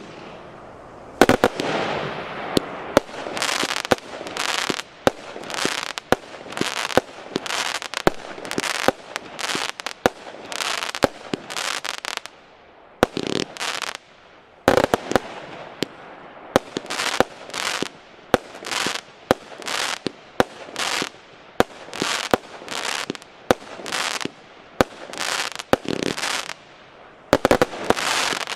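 A 200-shot, 20 mm consumer firework cake (Piromax PXB3935 'Show Time') firing in rapid succession, about two shots a second. Each sharp launch is followed by the burst of its star, with a brief pause about 13 seconds in and a few louder shots among them.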